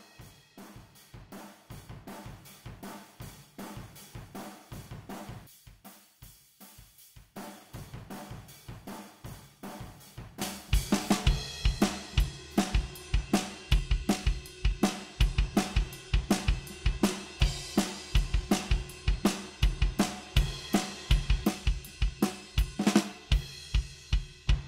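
Recorded acoustic drum kit playing back: kick, snare, hi-hat and cymbals in a steady groove. About ten seconds in, the drums become much louder and brighter.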